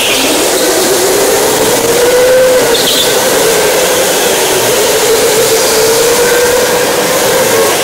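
Go-kart motor running at speed, a steady whine whose pitch rises and falls as the kart speeds up and slows through corners.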